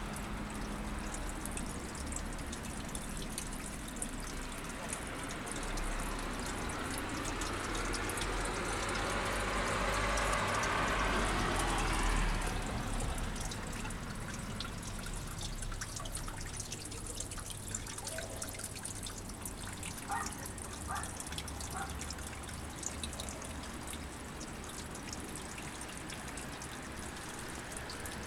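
Water trickling steadily, with a louder rushing swell that builds and fades about ten seconds in.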